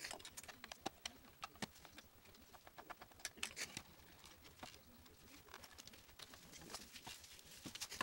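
Faint, irregular clicks and taps of a plastic alarm clock's case being handled and turned over while it is taken apart, with a quick run of clicks about three seconds in.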